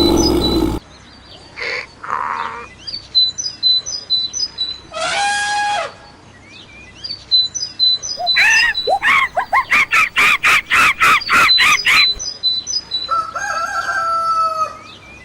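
Chickens calling: a rooster's crow, then a fast run of about a dozen clucks at roughly three a second, and another drawn-out crow near the end, over a repeating pattern of short, high small-bird chirps.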